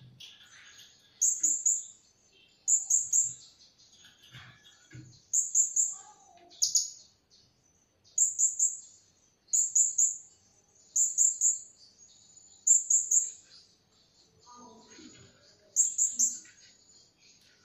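Blue-crowned hanging parrots (serindit) calling: short, shrill, high-pitched bursts of three or four rapid notes, about ten of them, repeated roughly every second and a half.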